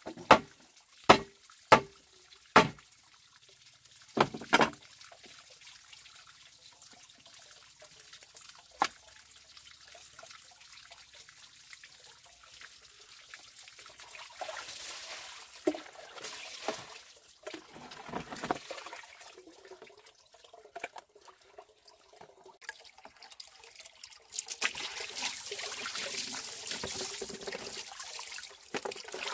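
Water trickling and splashing, building to a steady pour of water near the end. A handful of sharp knocks in the first few seconds.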